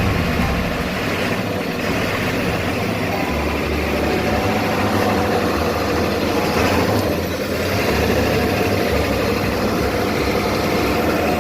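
Ford 7.3 Power Stroke V8 turbo diesel idling steadily. It is running again now that the missing fuse 30 in the PCM relay control circuit has been replaced.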